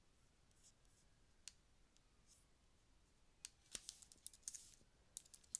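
Faint computer keyboard typing: a few isolated clicks, then a quick run of keystrokes over the last two seconds or so.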